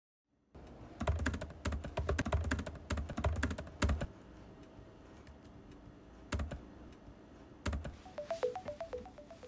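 Typing on an Apple MacBook laptop keyboard, a quick run of key clicks for about three seconds, then a pause and two single taps. Near the end a phone ringtone starts, a short repeating run of notes.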